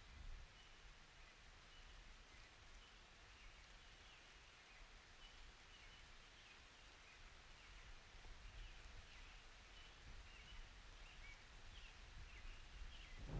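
Near silence with faint, frequent short high chirps from small birds. A low rumble of thunder begins right at the very end.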